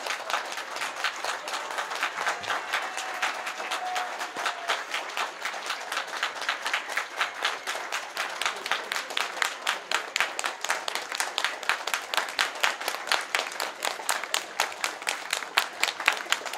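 Audience applauding after a live band's set, the clapping falling into a steady rhythm of about four claps a second, with one pair of hands close by standing out.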